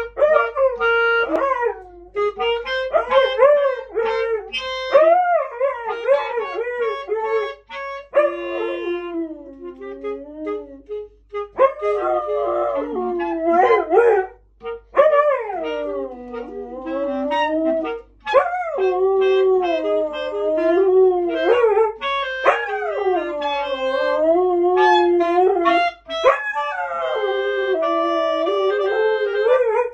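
A dog howling along to a clarinet being played, its pitch sliding up and down over the clarinet's held notes.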